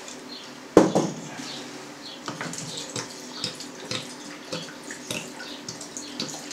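Warm water pouring in glugs from a plastic bottle into a three-litre glass jar, splashing as the jar fills. A single sharp knock, the loudest sound, comes just under a second in.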